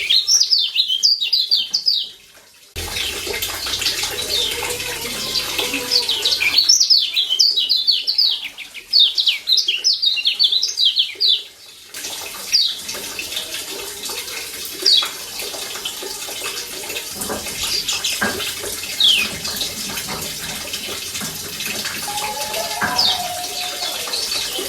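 Kecial kuning (Lombok yellow white-eye) calling in fast runs of short, high, falling chirps, the 'ciak' call, in two bursts, then single chirps now and then over a steady hiss.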